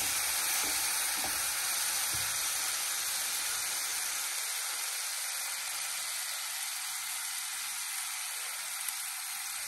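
Spiced sauce mixture sizzling steadily in hot oil in a kadai as it is stirred with a metal slotted spatula, which knocks lightly against the pan a few times in the first couple of seconds.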